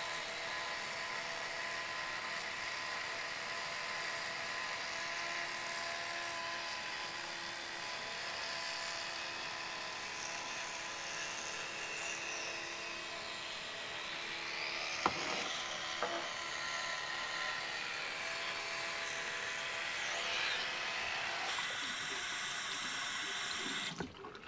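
Electric toothbrush running steadily while brushing a macaque's teeth, a buzzing whine whose tone shifts as the head moves around the mouth, with a brief knock about 15 seconds in. It switches off near the end.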